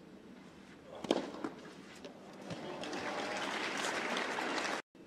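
A tennis ball struck sharply with a racquet about a second in, followed by a lighter hit, then crowd applause swelling for a couple of seconds and cutting off abruptly near the end.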